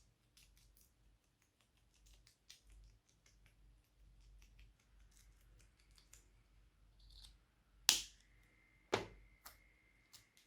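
Glossy slime being squeezed and stretched by hand, giving faint, irregular sticky clicks and pops, with three louder snaps near the end.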